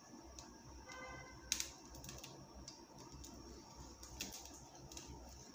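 Faint scattered light clicks and taps, with a sharper tap about a second and a half in, from hands at work seasoning a raw sea bream with paprika.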